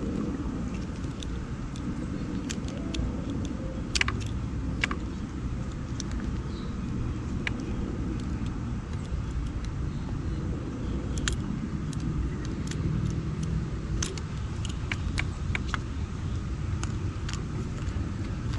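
Scattered small clicks and ticks from a folding knife and plastic wire connectors being handled while heat shrink is cut off the wiring, over a steady low rumble.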